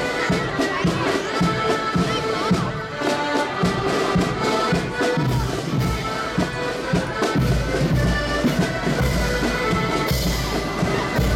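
Accordion marching band playing a march: many accordions sounding the tune together in sustained chords, with the bass drum and side drums keeping a steady marching beat.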